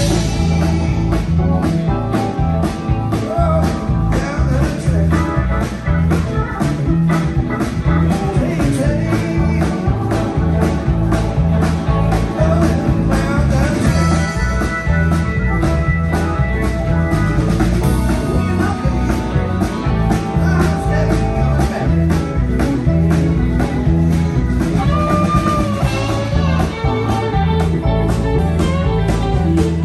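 Live band playing blues-rock: electric guitar, electric bass, keyboard organ and drum kit, with a steady beat.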